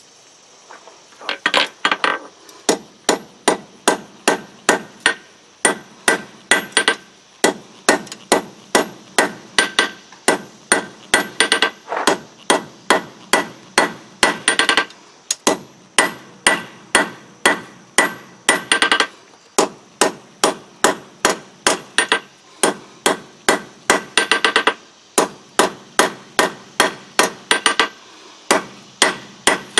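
Blacksmith's hammer striking steel on an anvil, about two to three blows a second in runs with short pauses; each blow rings.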